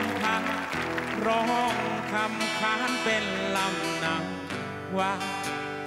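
Male lead vocal sung live over strummed acoustic guitar: a Thai folk-rock band performing.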